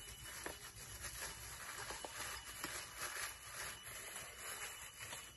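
Thin plastic bag crinkling and rustling in uneven bursts as leafy greens are handled from it into a bowl.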